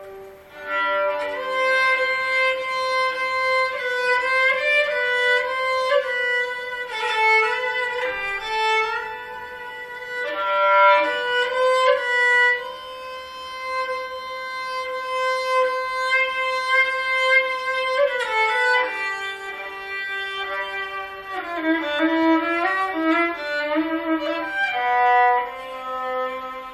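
Four-string Cretan lyra with twenty sympathetic strings, walnut body and Lebanese cedar soundboard, tuned C-G-D-A, being bowed. A melody moves over a lower held note, with one long sustained note about halfway through.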